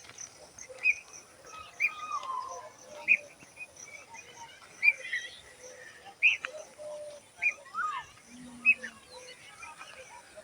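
Birds chirping: short sharp chirps every second or so, with a couple of sliding calls in between.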